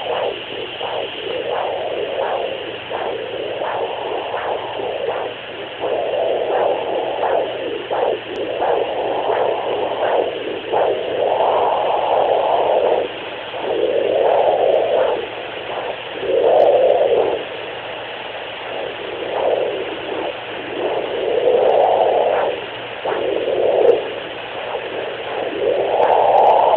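Handheld fetal doppler's speaker giving whooshing swells of noise, each a second or two long and unevenly spaced, over a steady hum.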